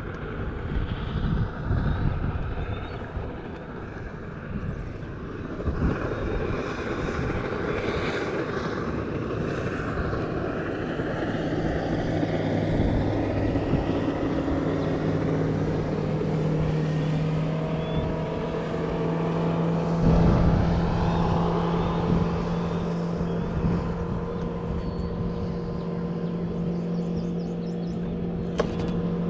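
Wind buffeting the microphone on an open boat. About eleven seconds in, a boat motor's steady hum comes in and holds, with one sharp click near the end.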